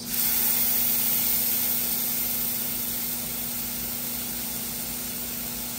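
Tri-tip beef roast sizzling as it sears in hot rendered beef fat, stood on its end to brown. The sizzle jumps up as the end hits the pan and slowly eases off.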